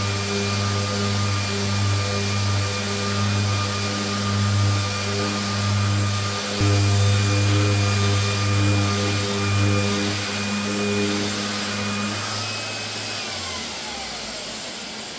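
Festool rotary sander with 120-grit paper running steadily on a wooden veneer cabinet top, stripping old varnish, with a dust-extractor hose attached. Near the end it is switched off, and its motor whine falls in pitch as it spins down.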